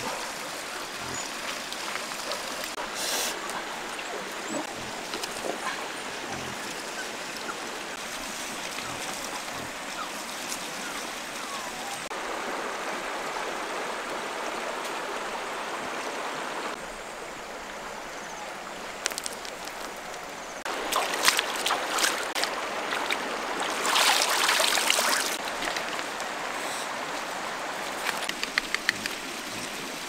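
Shallow river running over stones, a steady rushing hiss, with two louder bouts of splashing in the second half as a basket is worked in the water at the edge.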